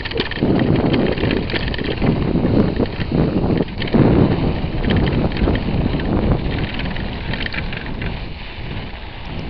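Wind rumbling on the microphone while it moves along a snowy track, with scattered crackling and rattling from the movement. It eases off a little near the end.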